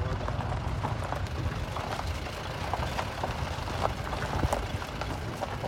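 Safari jeep driving over a dirt forest track: a steady low engine rumble with frequent short rattles and knocks from the ride.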